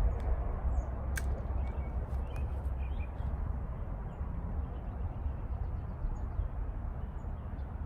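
Outdoor ambience: a steady low rumble of wind on the microphone with scattered faint bird chirps, and one sharp click about a second in.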